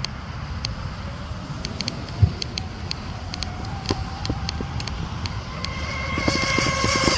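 Twin brushless motors and props of an RC speed boat whining at speed out on the water, a faint high tone that grows louder near the end as the boat comes closer. Under it runs a low rumble of road traffic, with a brief thump about two seconds in.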